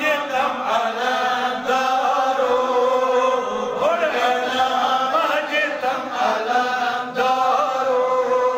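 Devotional chanting: a voice sings a melodic religious recitation, its pitch rising and falling over a steady held note.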